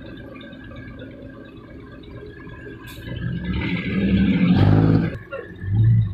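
Dump truck's diesel engine running with a low rumble, then revving hard for about a second and a half a little over three seconds in, the truck straining with its rear wheels sunk in mud.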